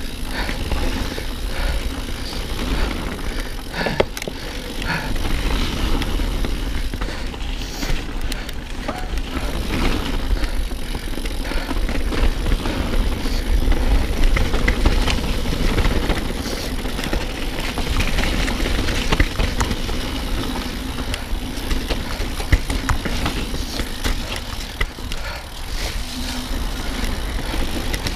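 Specialized Enduro mountain bike riding down a wet, rough trail: tyres rolling over the ground, the chain and frame rattling, and a few sharp knocks as it hits bumps and drop-offs, with wind rumbling on the camera microphone from the riding speed.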